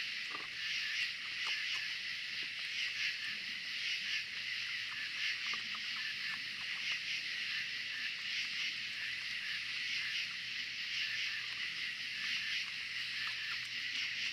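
Steady, dense high-pitched chorus of night insects, with faint scattered clicks of raccoons picking at and chewing food on a wooden table.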